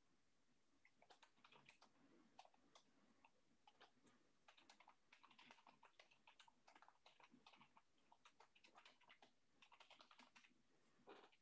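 Faint typing on a computer keyboard: quick, irregular key clicks in runs with short pauses.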